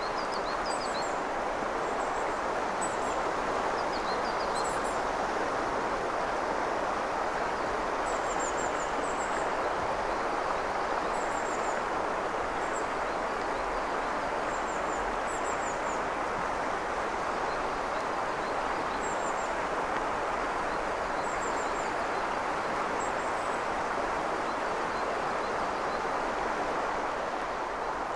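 Steady rush of a clear mountain river's flowing water. Short high bird chirps, a few notes at a time, come every two to four seconds.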